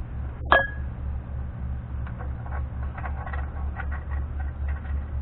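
A single ringing metal clink about half a second in, then a run of small light clicks as the steel locking nut is fitted and turned onto the threaded spindle of a Dana 44 front wheel hub.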